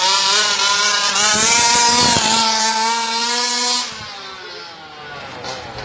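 Remote-control toy Ferrari car's engine sound as it drives along the road, a steady, slightly wavering engine note that sounds like a real car. It drops off sharply nearly four seconds in and carries on more quietly as the car moves away.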